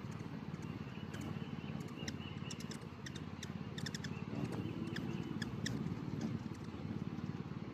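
Several hummingbirds chirping in quick, sharp chip notes, many short calls scattered throughout and thickest in the middle, over a steady low hum.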